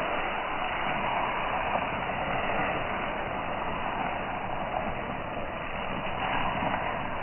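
A large stack of hula hoops spinning together around a person's body: a steady rushing whoosh with faint clicks as the hoops knock against each other.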